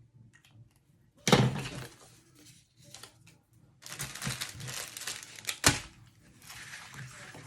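Packaging crinkling as it is handled: a loud rustle about a second in, a longer stretch of crinkling from about four seconds with a sharp snap near six seconds, then softer rustling.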